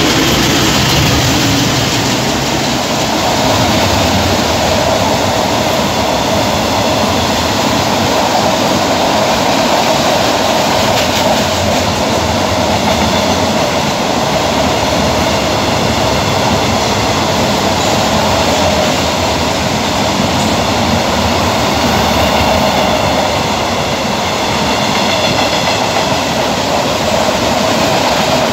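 A KTM Class 29 diesel-electric locomotive passes at speed, followed by a long freight train whose wagons roll by in a steady, loud rush of wheel and rail noise. Faint high-pitched ringing joins in about halfway through.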